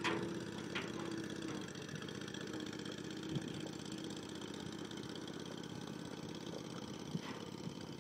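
An engine idling steadily, with a few light knocks from a bison calf's hooves on the steel dump bed.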